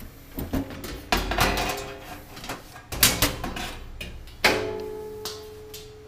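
Steel top cover of a Supermicro 3U server chassis being released and slid off, with clicks, knocks and scraping sheet metal. A sharp metal clank about four and a half seconds in leaves a ringing tone that slowly fades.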